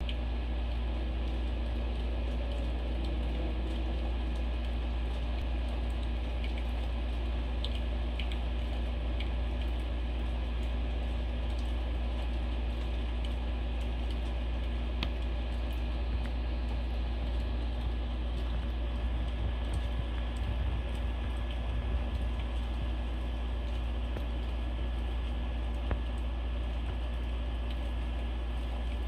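Steady low background hum with a few scattered faint clicks.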